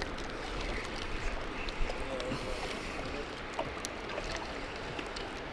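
Spinning reel being cranked to reel in a hooked fish, faint scattered clicks over a steady rush of spillway water and wind.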